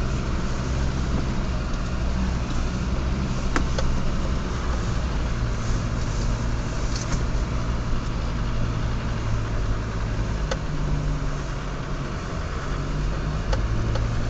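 Steady low engine drone heard from inside a car's cabin as the car creeps through snow behind a tractor, with a few faint clicks.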